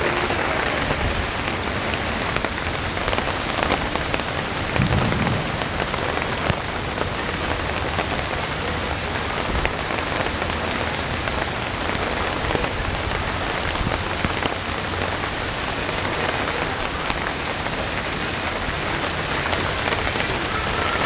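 Rain falling steadily in a downpour, splashing on wet pavement, grass and a shelter roof.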